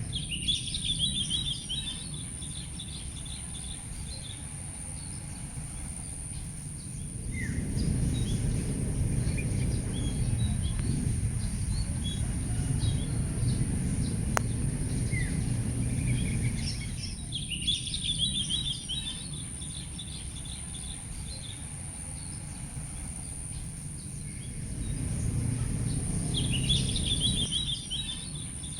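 A songbird sings a short, quick twittering phrase three times: near the start, just past halfway and near the end. Behind it are a steady high-pitched insect drone and a low rumble that swells twice.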